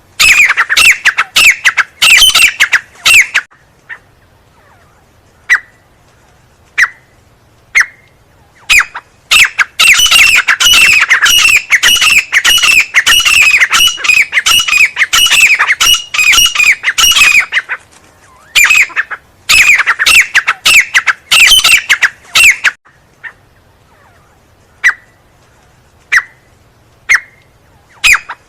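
Teetar (francolin) calling: loud runs of rapid, harsh repeated notes, each note dropping in pitch, broken by pauses in which only single short notes sound.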